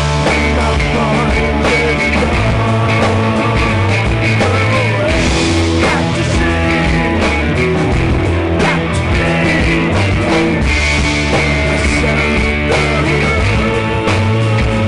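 Rock music played loud and steady by a band, with electric guitar notes that bend in pitch.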